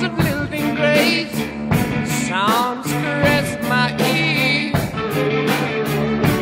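Rock music with a singing voice over a steady drum beat and bass.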